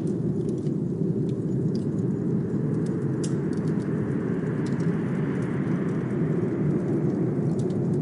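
Blizzard wind blowing steadily with a deep rush, swelling in a gust through the middle, over scattered sharp crackles of a wood fire.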